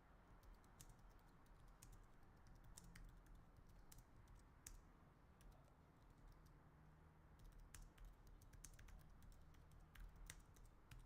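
Faint typing on a computer keyboard: scattered short key clicks at an irregular pace.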